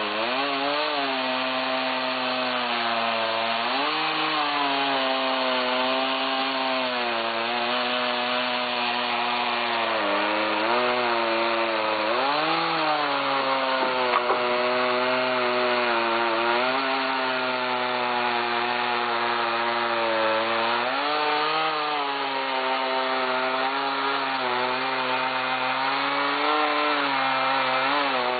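Gas chainsaw running at high revs while cutting straight down through stacked tulip poplar logs. The engine note sags and recovers several times as the chain bites into the wood, with a steady run between the dips.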